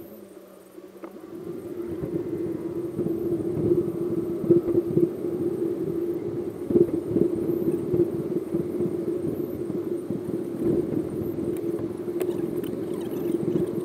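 Steady engine and road rumble of a car driving, with a constant low hum, heard from a windscreen-mounted camera. It is quieter for the first second or so, then steady.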